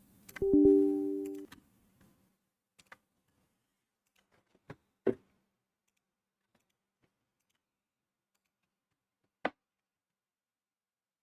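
A short computer notification chime of a few steady tones, fading over about a second. It is followed by a handful of separate mouse clicks, the last one near the end.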